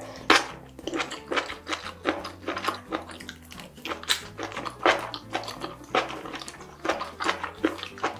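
Close-miked chewing of food in thick sauce: wet, irregular smacks and clicks of the mouth, a few a second.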